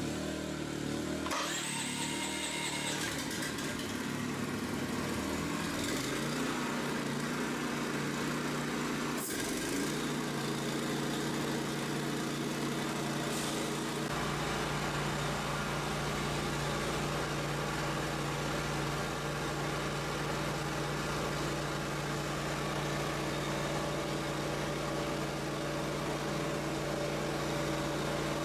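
Small gasoline engine on a line-striper rig starting up and coming up to speed over the first few seconds, then running steadily, with a sharp click about nine seconds in. Another engine is already running underneath.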